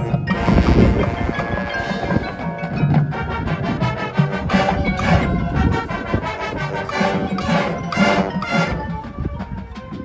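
Marching band playing its field show. The front ensemble's mallet percussion stands out, with many quick struck, ringing notes over the band.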